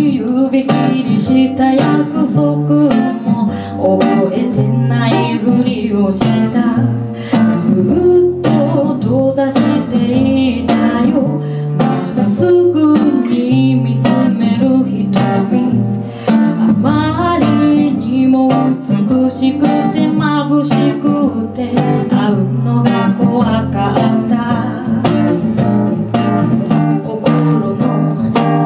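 A woman singing into a microphone to a plucked and strummed acoustic guitar accompaniment, a live duo performance.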